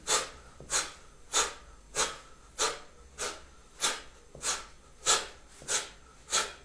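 A man's short, forceful exhalations in an even rhythm, about three every two seconds. Each is a sharp abdominal push of breath timed to a stabbing arm stroke.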